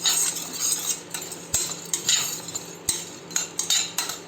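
A spoon stirring and scraping in a pan of long pepper (pippali) being roasted on a low flame, in quick, uneven strokes about two or three a second.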